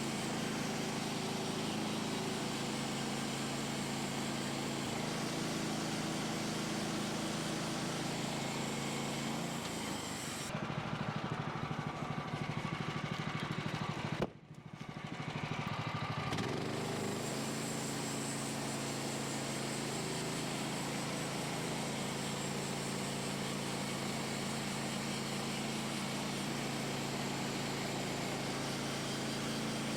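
Portable band sawmill's gas engine running steadily under load with the hiss of the blade cutting. About ten seconds in the sound changes, dips sharply for a moment near the middle, and then settles back into the same steady running.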